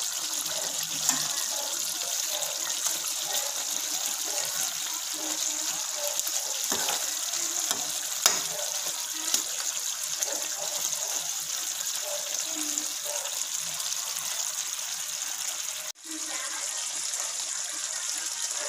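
Pan of kare-kare stew simmering on the stove: a steady watery hiss, with a few sharp clicks of a slotted spatula against the pan as the bok choy is stirred in. The hiss breaks off for a moment near the end, then goes on.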